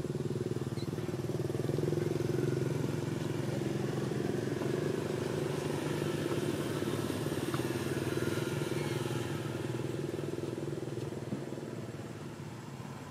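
A motorcycle engine running at a steady pitch as it passes, swelling over the first couple of seconds and fading away near the end.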